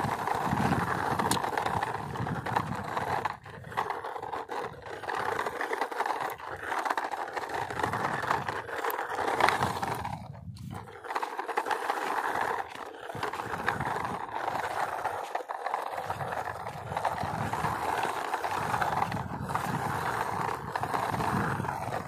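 A person making a continuous vehicle engine noise with the mouth, a steady drone for a pushed toy truck, breaking off briefly a few times.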